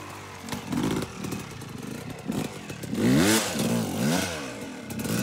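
Yamaha YZ250 single-cylinder two-stroke dirt bike engine riding at a distance, revving up and down in a few quick rises and falls about three to four seconds in.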